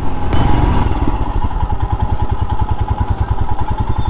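Royal Enfield Himalayan's 411 cc single-cylinder engine: running under way at first, then, after a sharp click about a third of a second in, idling with a rapid, even beat.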